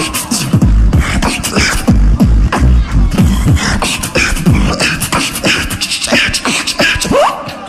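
Live beatboxing into a handheld microphone: deep bass kicks, sharp snares and clicks in a fast rhythm, with a short rising pitched glide near the end.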